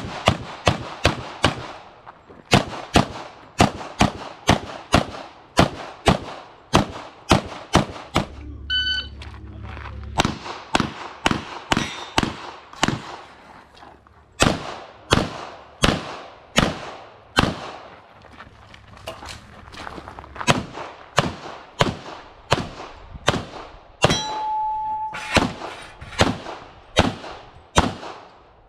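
Rapid semi-automatic fire from a CZ TSO pistol: dozens of sharp shots in quick strings, many fired as pairs, with a short lull about eight seconds in and a brief steady tone near the end.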